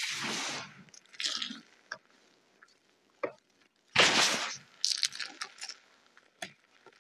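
Bare feet pressing and rubbing into a deep layer of crushed gym chalk powder, giving soft gritty squishing crunches. A strong crunch comes at the start, another about a second in, the loudest just past the middle, then a run of small crackles.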